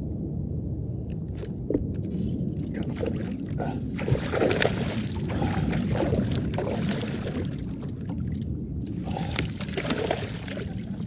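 Water sloshing and splashing with scattered clicks and knocks, over a steady low rumble. The splashing comes in two busy stretches, the second starting near the end.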